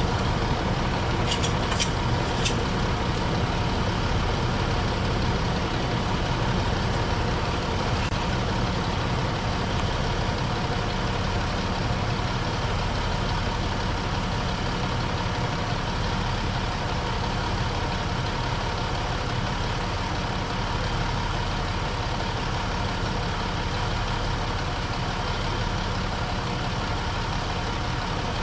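2006 Dodge Ram 1500 pickup engine idling steadily in neutral, warmed up, with a few light clicks about two seconds in.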